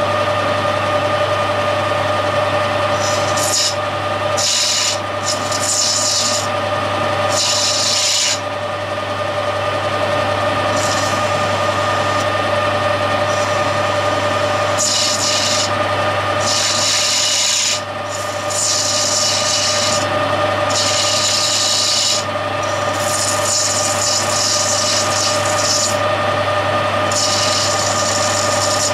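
Metal lathe running with a steady hum and whine while a lathe tool cuts a 45-degree seat on a bronze valve. The cut comes and goes as a high scraping hiss in spells of a second or two as the tool is fed in and backed off.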